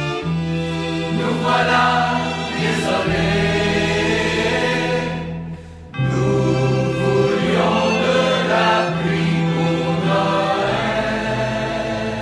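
Music: a pop song's closing section, with choir-like voices held over sustained chords and a steady bass line, and a short drop in level about halfway through.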